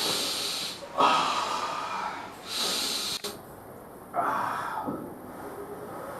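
A person taking a series of deep, noisy breaths, about four or five of roughly a second each, drawing smoke in through the mouth and blowing it out through the nose.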